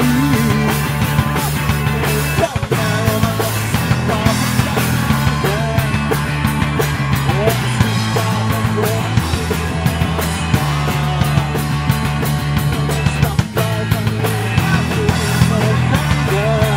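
A live pop-punk band playing loud and fast: two electric guitars, bass guitar and drums, with a male lead vocal sung in Swedish. The band cuts out for a split second twice, about two and a half seconds in and near the end.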